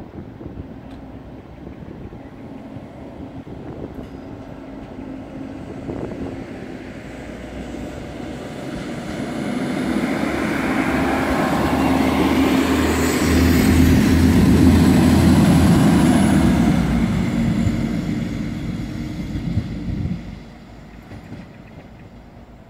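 PESA SA134 two-section diesel railcar driving past: its diesel engine and wheels on the rails grow louder as it approaches, are loudest about halfway through as it passes close, then fade as it moves away, falling off sharply a couple of seconds before the end.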